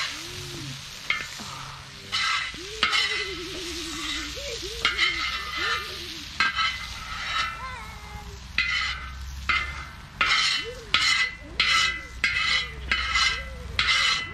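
A utensil stirring and scraping lamb, onions and peppers sizzling in a hot pan, with irregular strokes at first and then regular strokes about one and a half a second apart. Short low calls repeat behind it.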